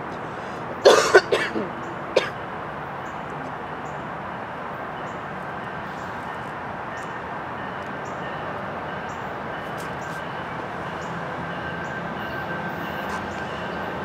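A person coughs and clears their throat about a second in, over the steady rumble of a passenger train approaching in the distance, which grows slowly louder toward the end.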